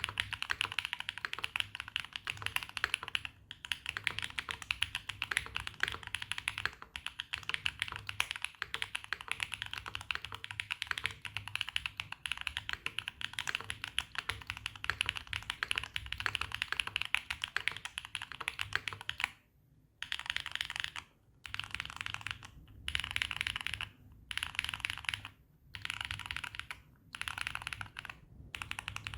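Typing on a mechanical keyboard with Epomaker Wisteria tactile switches: a Neo80 with a carbon fiber plate, full foam and Swagkeys Classic Red keycaps. The keystrokes come fast and continuously, then over roughly the last ten seconds break into short runs with brief pauses between them.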